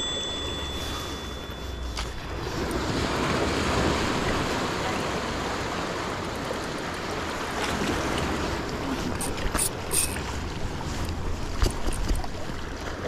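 Sea waves washing against a rocky shore, with wind rumbling on the microphone.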